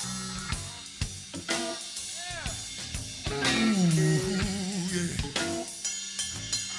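Live rock band playing an instrumental passage: a drum kit with sharp snare hits under a lead line whose notes bend up and down and waver, from about two seconds in.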